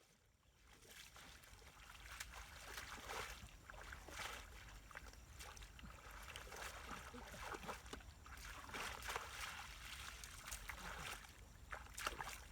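Faint, irregular sloshing and small splashes of muddy water as hands work through the mud.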